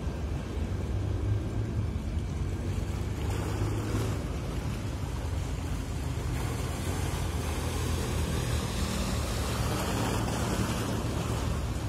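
Boat engine running steadily with a low rumble, mixed with a hiss of wind and water that grows stronger about halfway through.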